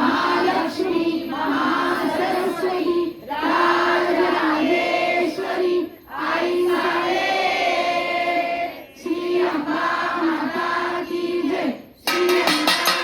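A young girl's voice singing a devotional call over a microphone, with a group of voices singing along, in phrases of about three seconds held near one pitch with short breaks between them. About a second before the end, rhythmic instrumental music with a fast percussion beat starts abruptly.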